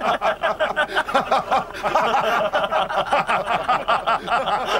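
Several men laughing out loud together in a long, unbroken run of rapid laughs.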